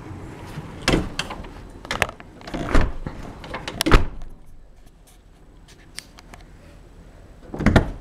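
A house door and knocking handling noises: several sharp thumps over the first four seconds, then quieter rustling, and a louder cluster of knocks near the end.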